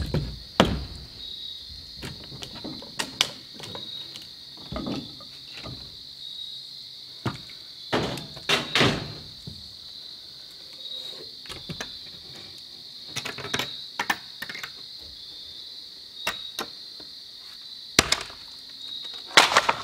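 Scattered knocks, thumps and scrapes of rotten truss timber being worked loose and handled, with the loudest clatters about eight to nine seconds in and near the end. Under them runs a steady high-pitched insect chorus.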